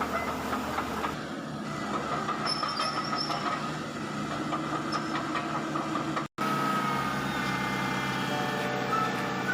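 Hitachi ZAXIS 110 excavator's diesel engine running steadily, with a dense mechanical rumble. The sound drops out for an instant about six seconds in, then carries on.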